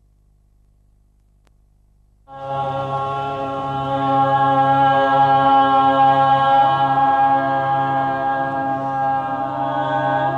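Unaccompanied voices singing a slow chant in long, steady held notes over a low sustained tone, starting suddenly about two seconds in and growing louder a couple of seconds later.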